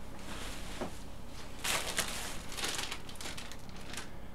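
Plastic packaging crinkling and rustling in irregular bursts as the printer's boxed accessories are handled and unwrapped, loudest about one and a half to two seconds in.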